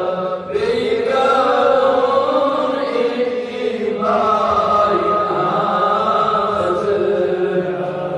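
A man chanting a devotional recitation into microphones, in long drawn-out held notes. A short break comes about half a second in, and a new long phrase starts about four seconds in.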